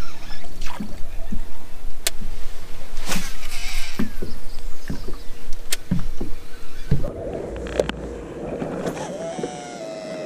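Wind rumbling on the microphone, with scattered knocks and splashes from a small boat rocking on the water. About seven seconds in, the sound cuts to a quieter, steady hum.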